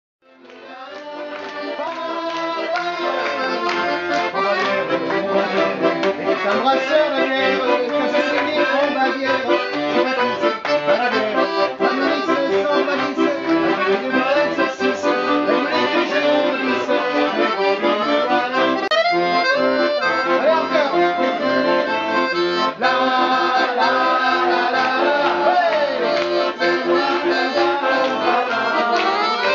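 Two accordions playing a tune together, fading in over the first couple of seconds.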